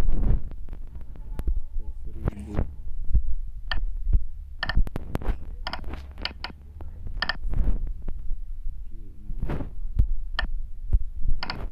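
Short electronic beeps from a CNC simulator app's on-screen keypad, one for each key tapped as a line of G-code is entered, at an uneven typing pace. Under them runs a low steady hum, with a few soft rustling noises.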